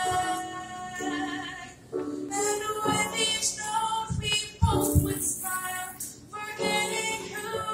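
A girl singing a solo into a handheld microphone, in phrases of held notes with short breaks between them.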